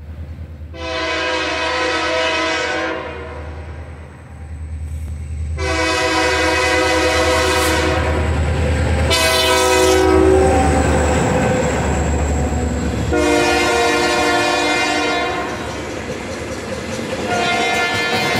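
Diesel locomotive air horn sounding the grade-crossing signal: two long blasts, a short one, then a long one, with another blast starting near the end. The locomotive's low rumble runs underneath, and wheels click over the rail joints as the cars pass at the end.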